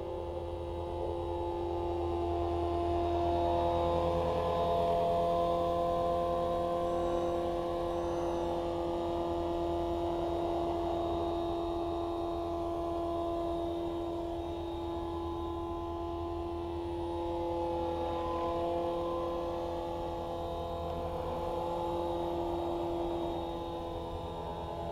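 Electric RC helicopter, a T-Rex 450 with a Scorpion brushless motor, in flight: a steady whine from the motor and drive with a low rotor beat beneath it. It grows louder as the helicopter passes close about four seconds in and again past the middle, the pitch bending slightly with each pass.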